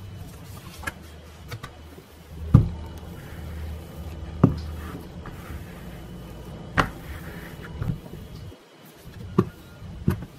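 Bamboo rolling pin rolling out pie crust dough on a plastic mat: a low, steady rolling rumble with several sharp knocks at irregular intervals as the pin and mat bump the table.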